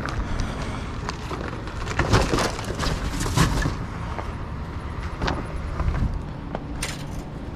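Rustling and clattering of scrap being handled, with a cluster of sharp knocks about two to three and a half seconds in.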